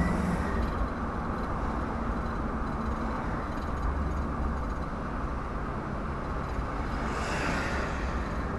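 Steady road and engine noise heard from inside a moving vehicle's cabin, with a brief swell of hiss about seven seconds in.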